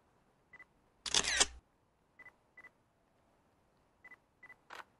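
Nikon DSLR at work: five short high autofocus-confirmation beeps and shutter clicks. The loudest is a shutter burst of about half a second, about a second in, and a sharp click comes near the end.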